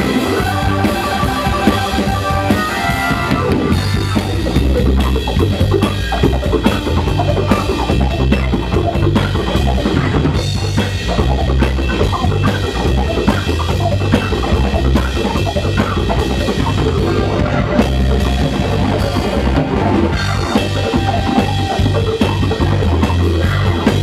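Live instrumental band playing: Hammond organ chords over a drum kit's bass drum and snare, with electric bass underneath.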